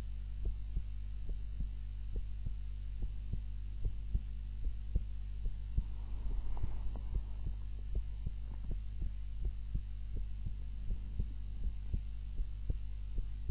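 Heartbeat of a woman sleeping on her back, beating steadily as evenly spaced soft low thumps over a constant low hum. A brief patch of soft noise comes about halfway through.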